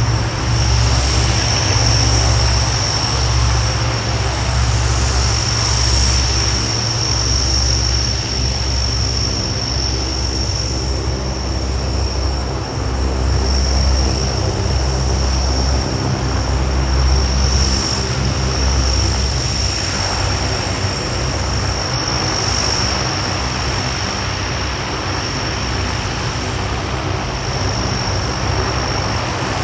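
Lockheed C-130 Hercules's four turboprop engines running loud and steady: a deep propeller drone under a constant high turbine whine, with a broader rushing noise building from about two-thirds of the way in.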